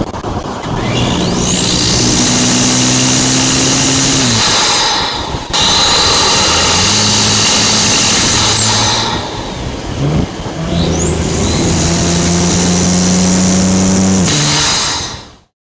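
Tuned Audi SQ5 engine and exhaust under three hard bursts of acceleration, with a turbo whistle sweeping up in pitch over the exhaust note. The sound fades out quickly near the end.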